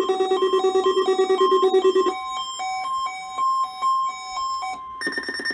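Electronic alarm tones. For about two seconds a fast-pulsing buzz sounds under beeps that alternate between notes. Then the buzz stops and a run of short stepped beeps continues. After a brief break near the end, a different steady high tone starts with a pulsing buzz beneath it.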